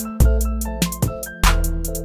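Background music: an instrumental track with a steady drum beat and a deep, sustained bass line.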